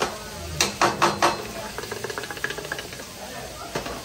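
Metal teppanyaki spatula and tongs clacking on a hot steel griddle: a quick cluster of sharp strikes about a second in and one more near the end, over the sizzle of food cooking.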